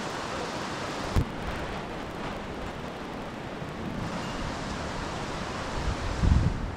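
Mountain stream water running steadily. There is a sharp knock about a second in and a few low thumps near the end.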